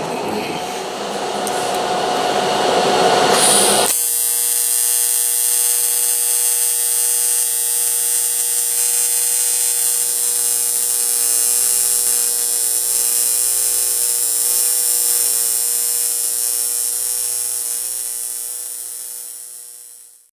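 TIG welding arc on 7075 aluminum. It buzzes with a rough hiss, settles about four seconds in into a steady, even buzz, eases slightly near the end and cuts off sharply as the arc is broken.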